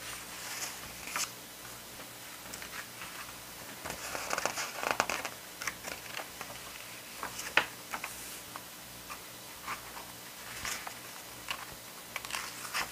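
Paper pages of an album's lyric booklet being turned one after another, rustling and flicking in irregular bursts. There is a sharp click a little past halfway.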